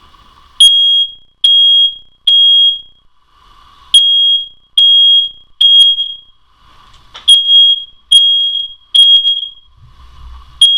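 Smoke detector sounding its alarm: a loud, high-pitched beep repeated in groups of three, each beep about half a second long, with a short pause after each group. This is the standard three-beep evacuation pattern, here set off deliberately as a test.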